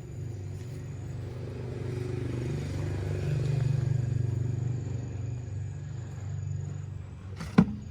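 A motor running with a steady low drone that swells about three seconds in and then eases off, with one sharp knock near the end.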